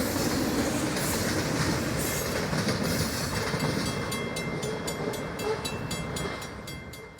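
A train running on track, its wheels clicking over rail joints about five times a second in the second half, then fading out at the end.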